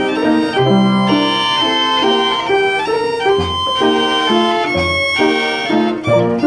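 Mills Novelty Violano-Virtuoso, the automatic violin-and-piano machine, playing a tune from its perforated paper roll: a real violin bowed mechanically carries held melody notes over struck piano chords and bass notes.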